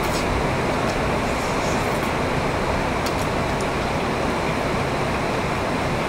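Steady rain, a constant even hiss, with a few faint smacks of chewing.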